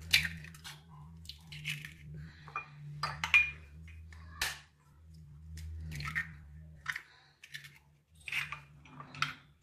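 Two hen's eggs being cracked open with a steel spoon over a glass bowl: a run of sharp taps and crunches of breaking shell, spaced irregularly over several seconds.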